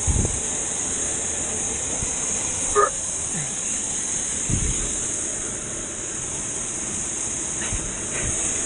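Steady rushing hiss of falling water from a waterfall. A few short low thumps come near the start and about halfway through, and a brief higher-pitched sound comes about three seconds in.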